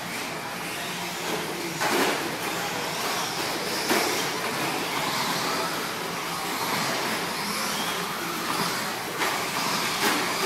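Radio-controlled 2wd short course trucks racing on a dirt track: a steady mix of high motor whine rising and falling with the throttle and tyres scrabbling on dirt. Sharp knocks about two seconds in, about four seconds in and near the end, as trucks land or hit something.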